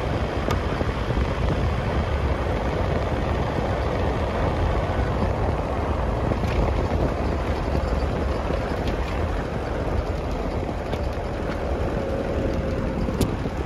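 Vehicle driving along a dirt track: a steady low rumble of engine and tyres, with a few light clicks and rattles from the bumps.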